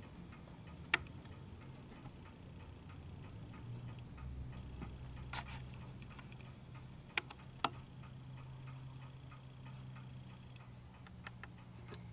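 Quiet workshop room tone with a steady low hum, broken by a few sharp isolated clicks: one about a second in, and two close together a little past the middle.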